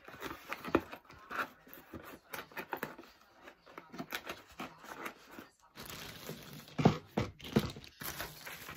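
Plastic packaging and parts being handled: irregular crinkling and rustling with small clicks, and a couple of sharper knocks near the end.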